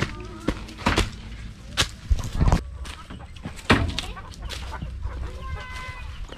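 Chickens clucking, with a short call near the end, among several sharp knocks and rustles close to the microphone.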